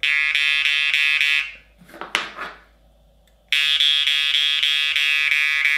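Babayev Munneharpe jaw harp tuned to D being played: a buzzing drone with bright ringing overtones and a steady rhythmic plucking pulse. Its reed moves freely, cleaned of its rust-proofing wax. The drone stops about one and a half seconds in, followed by a brief breathy sound and a short pause, then starts again about three and a half seconds in.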